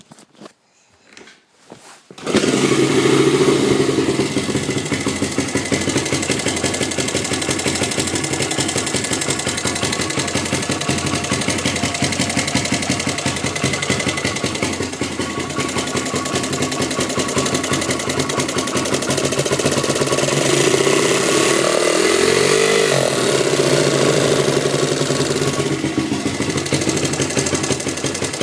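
Honda XR100's single-cylinder four-stroke engine starting about two seconds in after a few faint knocks, then running steadily, with a brief rise in engine speed a little past twenty seconds. It carries a strange mechanical noise that the owner suspects is crank or bottom-end related.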